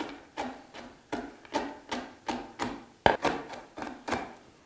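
Chef's knife chopping macadamia nuts on a wooden cutting board: a steady run of knocks about three a second, the sharpest about three seconds in, stopping just before the end.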